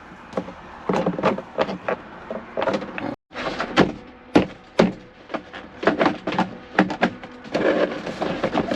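Irregular knocks and clicks of dash parts being handled and fitted in a truck cab. The sound cuts out briefly about three seconds in.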